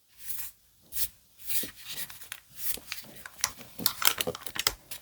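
Soft plastic packaging bag rustling and crinkling as it is handled and opened, in short irregular rustles that come thicker near the end.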